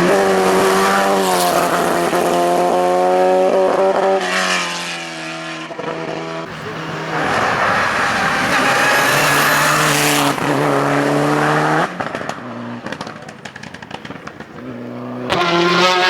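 Race car engine at high revs, its pitch climbing and falling back with repeated gear changes. It drops away suddenly about twelve seconds in and comes back loud near the end.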